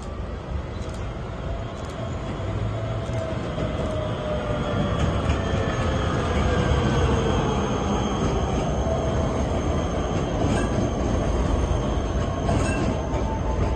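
Electric tram approaching and passing close by. Its wheels rumble on the rails, growing louder over the first half, with a motor whine that slides gently down in pitch and a thin, steady high squeal from the wheels in the second half.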